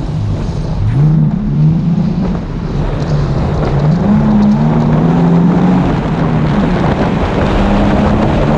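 Car engine accelerating hard through the gears: its pitch climbs about a second in, then falls back and climbs again with each upshift, over wind and road noise.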